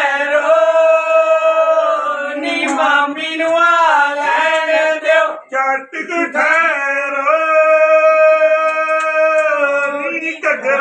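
Women's voices singing a Punjabi jaggo folk song in long, drawn-out held notes, with a brief break about five and a half seconds in.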